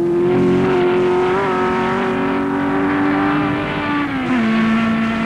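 Open-wheel racing car engines running hard, several engine notes heard at once. One note drops in pitch about four seconds in.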